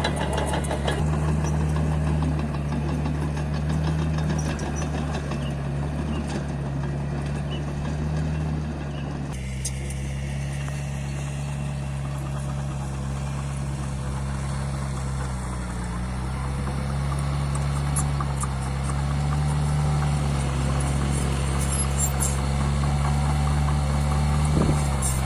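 Mini bulldozer's diesel engine running steadily while the machine levels fill soil. The engine pitch wavers only slightly. About nine seconds in, the higher background noise changes abruptly.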